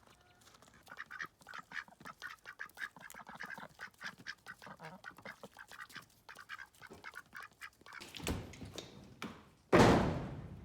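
Ducks quacking in a rapid run of short calls. Near the end comes a loud, sudden noise burst, the loudest thing heard, which fades over about a second.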